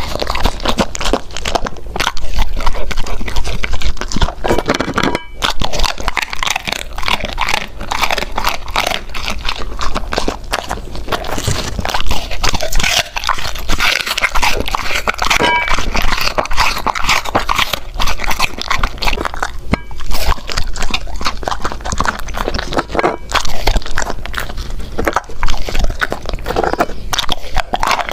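Golden retriever chewing and eating food, a dense run of quick clicks throughout.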